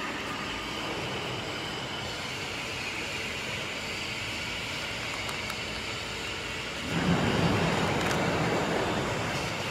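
Steady mechanical running noise from a CNC oscillating knife cutting machine. About seven seconds in, a louder rush of noise lasts a couple of seconds and fades, as cut leather pieces are handled close by.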